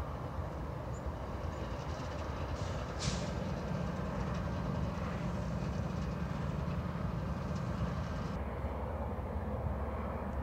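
Freight train with Union Pacific ET44AH diesel locomotives running by: a steady low rumble of the engines and rolling railcars. There is a brief hiss about three seconds in.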